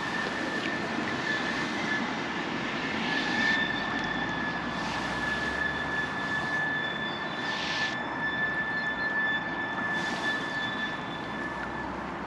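Distant aircraft engine drone with a steady high whine that stops near the end. A few short rustles come from a wet rope being coiled by hand.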